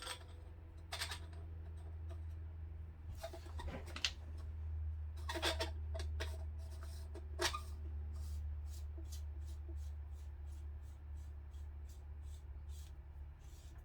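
Faint clicks and scrapes of metal suppressor parts being handled and threaded together by hand, over a steady low hum.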